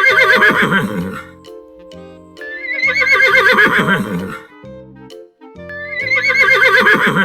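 Horse whinnying three times, each a loud neigh with a quavering, trilled pitch, over background music.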